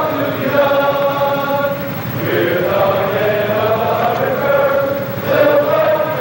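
Choir singing, a group of voices holding long sustained notes in phrases of about two seconds.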